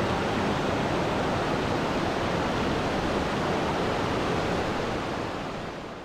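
Waterfall cascading over rocks: a steady rush of falling water that fades out near the end.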